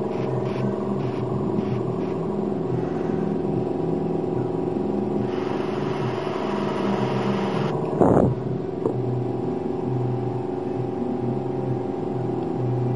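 Airbrush compressor running steadily, with the hiss of air through the airbrush coming and going in spells as the trigger is worked. A short thump about eight seconds in.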